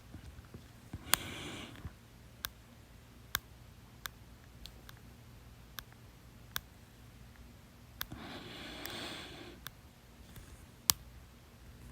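A person with hiccups: sharp, brief hiccup clicks at irregular intervals, the loudest about a second in and near the end, with two stretches of breathing in between.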